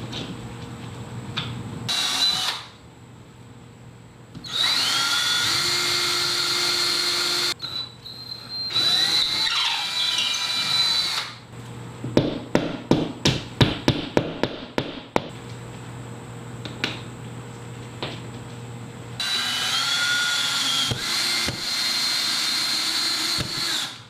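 Cordless drill running in several whining bursts, its pitch rising and falling with trigger speed, then a quick run of light hammer taps setting a plastic drywall anchor. Near the end the drill runs again for several seconds, driving the mounting screw into the anchor.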